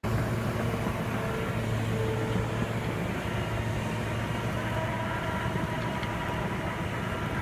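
Steady vehicle-engine rumble with a low hum, starting abruptly, as of heavy construction machinery running.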